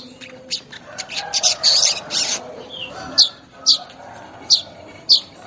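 Weaver bird (manyar) calling: a fast run of chattering notes in the first couple of seconds, then sharp, high chip notes that slide downward, repeated roughly every half second to second.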